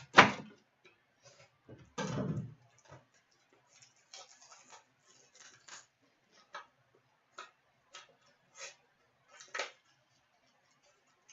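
Scattered clicks and knocks of objects being handled on a table. A sharp knock comes right at the start and a duller thump about two seconds in, followed by faint irregular ticks.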